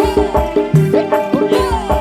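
Live band music during an instrumental stretch between sung lines: a steady, driving drum beat with bass, and a lead melody with bending notes.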